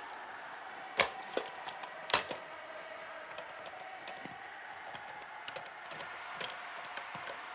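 Clicks and knocks from an old-fashioned telephone being handled: two sharp knocks about one and two seconds in, then a scatter of light clicks as a finger presses at the phone.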